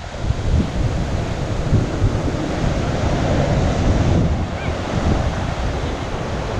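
Strong wind rumbling on the microphone over the steady wash of ocean surf breaking on the beach.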